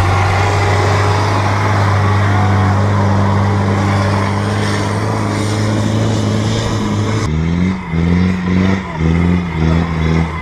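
Off-road 4x4 engine running hard and steady under load on a steep dirt climb. About seven seconds in the sound changes abruptly to an engine revving up in short repeated bursts, a little under two a second, as the throttle is worked over rough ground.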